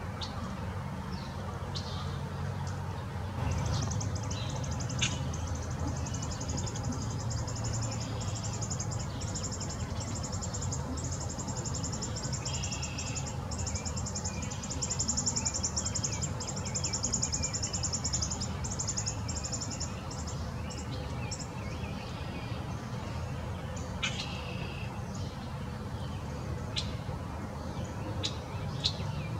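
Backyard songbirds calling: a long, very fast, high trill runs from a few seconds in until about two-thirds of the way through, with scattered short high chirps throughout, over a steady low rumble.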